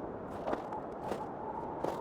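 Footsteps, about one every two-thirds of a second, over a steady rush of wind.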